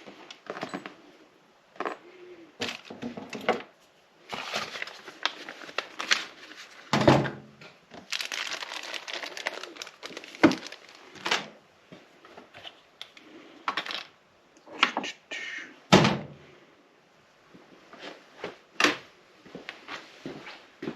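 Handling noise in a small room: a scattered series of knocks and thuds, three of them sharp and loud, between stretches of rustling and scraping, as a computer monitor and its mounting hardware are moved and handled.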